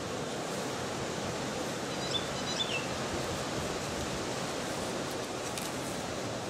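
Steady outdoor background hiss, with a few short high chirps about two seconds in.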